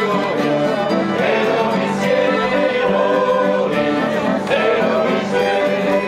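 Acoustic guitar playing a folk tune, with voices singing.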